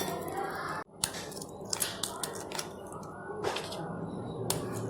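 Food preparation handling noises: scattered sharp clicks, cracks and crinkles from working with biscuits, packaging or utensils, with a sudden break about a second in.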